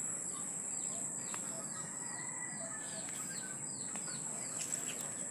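Garden ambience: a steady high-pitched insect drone, with a bird giving short falling chirps over and over, about two a second.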